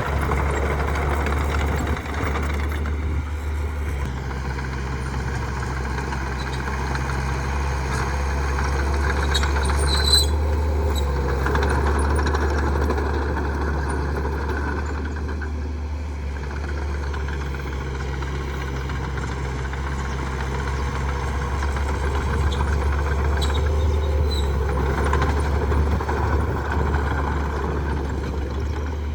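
Heavy diesel earthmoving machinery running steadily under load, with brief high-pitched squeals about ten seconds in and again near the end.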